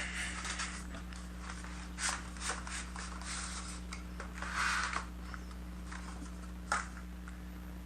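A product box being opened and handled: scattered short rustles and scrapes of cardboard and packaging, the longest about two-thirds of the way through and a sharp click near the end, over a steady low electrical hum.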